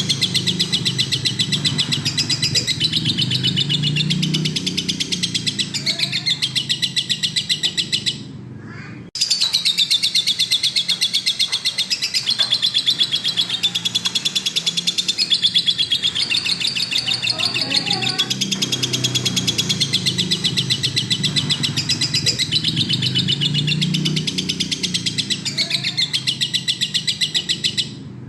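Lovebird in full song, a long, loud stream of rapid chattering trills, with a break of under a second about eight seconds in.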